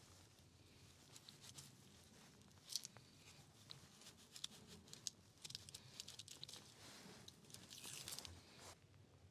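Faint, scattered crunching and tearing of raw lamb being handled and cut with a knife, with one sharper crunch about three seconds in.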